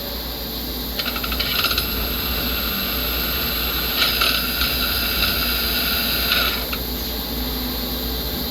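Star SR-32J's back four-station power-driven tool drive running, with a metallic gear rattle and jingle. The rattle comes twice: briefly about a second in, then for a longer stretch from about four seconds to nearly seven.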